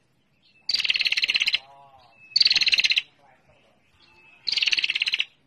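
Female prenjak (prinia) giving its rapid 'ngetir' chattering call. Three fast, dry trills, each about a second long, come with short pauses between them.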